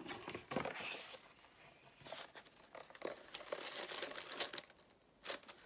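Crinkling and rustling of paper packaging as a cardboard beauty box is opened and its tissue-paper wrapping handled, with scattered small clicks and knocks of the box. The rustling drops away briefly near the end.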